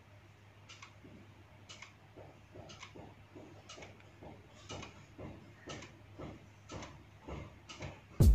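Faint clicks and soft knocks about once a second as raw beef pieces are dropped into an aluminium cooking pot and pushed around with a spoon.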